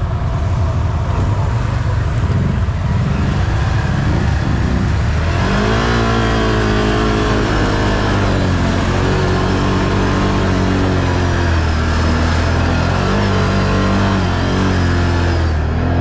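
Can-Am off-road vehicle's engine running under hard throttle in a mudhole. It rumbles roughly at first, then revs up about five seconds in and stays high, its pitch rising and dipping.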